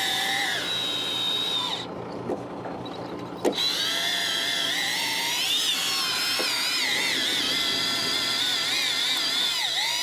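Big-game fishing reel whirring and whining under load from a hooked greater amberjack, its pitch wavering with the line's speed. The sound drops back between about two and three and a half seconds in, with a few clicks, then comes back in full.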